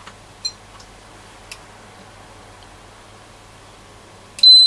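Peak Atlas ESR70 capacitance and ESR meter giving a loud, high-pitched beep near the end, signalling that its capacitor measurement has finished. Before that there are a few faint clicks as the test clips are handled.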